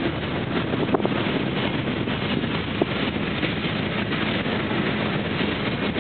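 Empty freight gondola cars rolling past: a steady rumble and rattle of steel wheels on the rails, with a couple of brief sharp clicks. Wind noise on the microphone.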